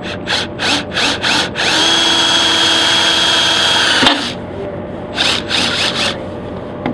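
Cordless drill boring the end-stop holes through a Harken Battcar track. Several short trigger bursts, then a steady run of about two and a half seconds that stops abruptly, then a few more short bursts.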